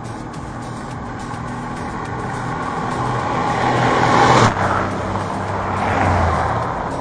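Engines of two SUVs racing side by side, growing louder as they approach at speed. The first passes close by about four and a half seconds in, with a sudden drop in pitch and level; the second passes about a second and a half later, then both fade.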